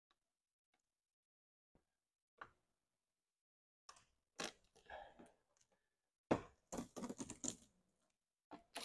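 Clear plastic paint protection film crackling and crinkling in short, scattered crackles as a trimmed strip is peeled away and handled. The first two seconds are silent.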